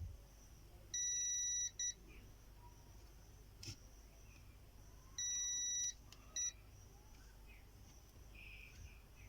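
Digital multimeter's continuity beeper sounding in two pairs, each a steady high beep of under a second followed by a short blip, as the probes touch points on a laptop motherboard during a check for shorts. The beep signals a low-resistance path between the probe tips. A single click about halfway between the pairs.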